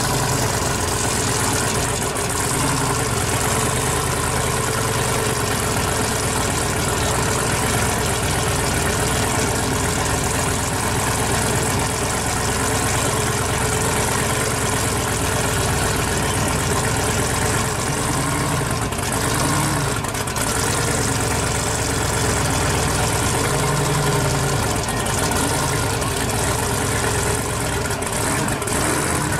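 Twin-turbo 1955 Chevy drag car's engine idling steadily with a deep rumble.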